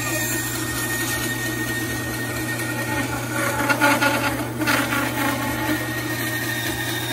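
WEN 3962 10-inch bandsaw running with a steady motor hum while its blade cuts through a thin strip of wood. The cutting noise is loudest and roughest from about three to five seconds in.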